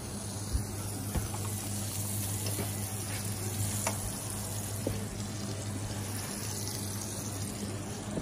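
Food sizzling on a flat-top griddle over a steady low kitchen hum, with a few light clicks of utensils.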